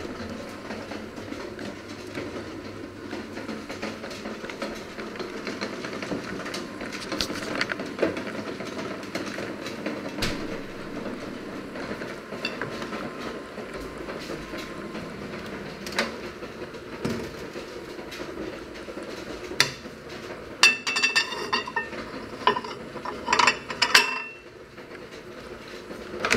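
Kitchen handling noises: dishes and metal utensils clattering and clinking over a steady background noise, with a run of sharp ringing clinks near the end.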